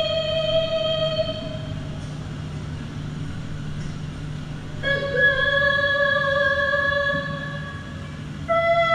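Slow, calm background music of long held notes, moving to a new note about five seconds in and again near the end, over a low steady hum.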